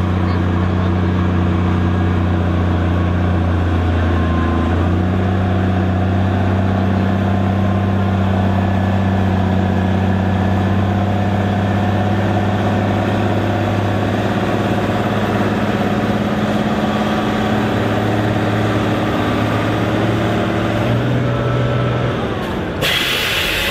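Case IH Magnum 7210 tractor's six-cylinder turbo diesel running hard under pulling load, a loud, steady, deep engine note that shifts slightly in pitch about five seconds in. Near the end a sudden hissing noise takes over.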